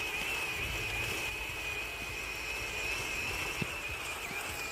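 Bwine Q111 RC tank's electric drive motor and metal gearbox running with a steady high-pitched whine that wavers slightly, over a low rumble.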